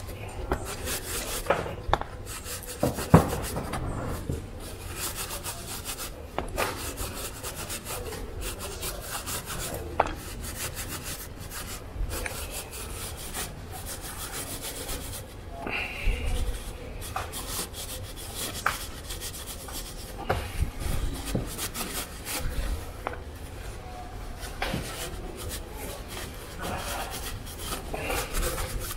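Paper napkin being rubbed and scrubbed over a dirty hydraulic brake caliper to clean it, a continuous scratchy wiping with many small clicks and knocks of the part being handled.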